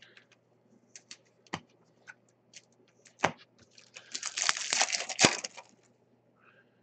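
Trading cards being handled: scattered sharp clicks and taps of card stock, then about a second and a half of crackling rustle around four seconds in, ending with a sharp snap.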